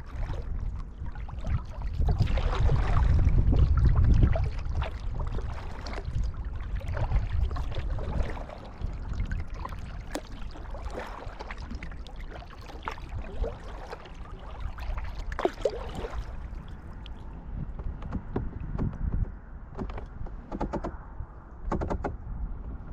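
Kayak paddle strokes splashing and dripping, with water lapping against the hull, over a low rumble that is loudest a few seconds in.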